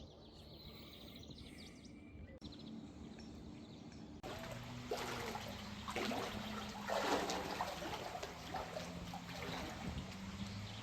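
Water trickling and splashing, louder from about four seconds in, with bird calls in the quieter first seconds and a faint low hum underneath.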